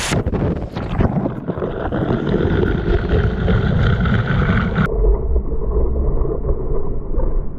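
Waterfall pouring right beside the microphone, heard from behind the falling curtain of water: a loud, low, rumbling rush of splashing water that buffets the microphone. About five seconds in, the higher hiss cuts out and the sound turns muffled.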